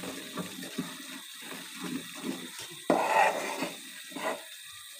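Whole-wheat flour frying in oil in a metal pan, the thick paste bubbling while a metal spoon stirs and scrapes it, with one louder scrape about three seconds in.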